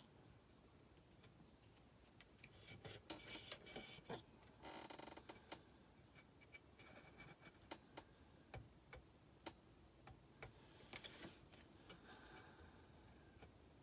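Faint, irregular clicks and short scratches of a craft knife cutting and trimming paper laid on a painted metal tray.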